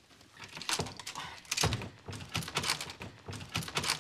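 An apartment door's knob and latches being jiggled and yanked against a lock: a quick run of clicks, rattles and thumps starting about a second in. The door is locked and will not open.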